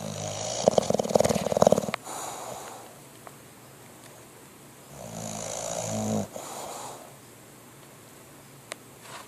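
English bulldog snoring in its sleep: two loud, rattling snores about five seconds apart, each followed by a softer breath out.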